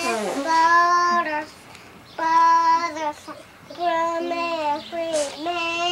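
A young girl singing a children's song unaccompanied, in three phrases of long, level held notes with short breaths between them.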